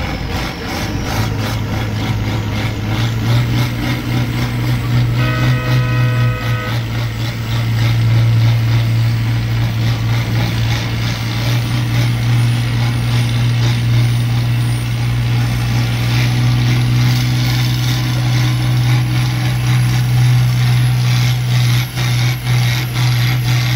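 Tractor engine running steadily, heard from inside the cab. About five seconds in, a brief steady tone like a horn or alarm sounds for about a second and a half.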